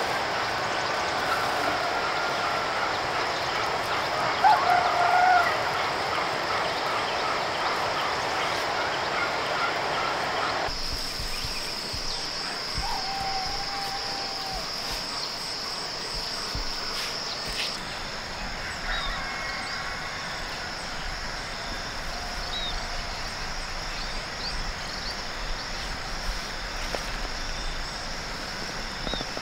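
Farm fowl calling now and then over a steady outdoor hiss, the loudest call about five seconds in. The background changes abruptly about eleven seconds in, and faint bird chirps come in the later part.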